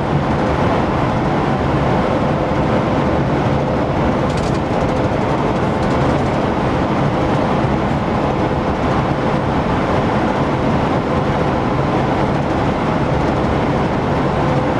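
Steady road and engine noise of a vehicle cruising at motorway speed, a continuous rumble with a low hum and a faint steady whine.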